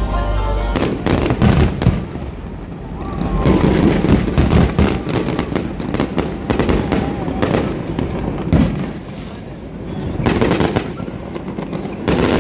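Fireworks display: volleys of sharp bangs from bursting aerial shells mixed with crackling, coming in waves that swell and ease off several times.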